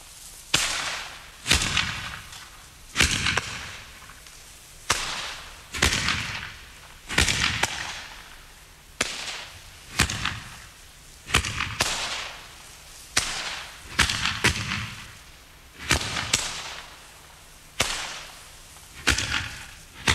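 Aerial fireworks bursting one after another: a sharp bang about every second, each one trailing off briefly before the next.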